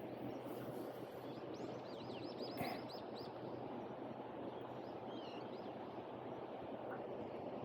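River water running with a steady rush. About two seconds in a small bird gives a quick run of high falling chirps, and a short warbling call follows a few seconds later. A single brief knock comes between them.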